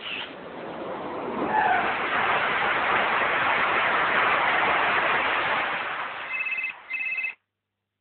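Jet airliner engine noise as a cartoon sound effect: a loud rushing that swells about a second in and fades out near six seconds. Near the end a telephone rings, two short rings in quick succession.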